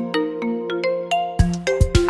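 An Alcatel OneTouch M'POP 5020D factory ringtone playing: a synthesized melody of short, decaying notes over a held bass note, with low drum beats coming in near the end.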